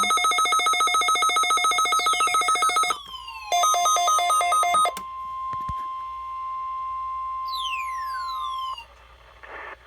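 NOAA Weather Radio weekly test signal: electronic alert tones. A fast-pulsing, ringing multi-tone alarm gives way to tones sliding downward, then a second short burst of pulsing tones. A steady single tone under falling sweeps follows and cuts off abruptly near the end.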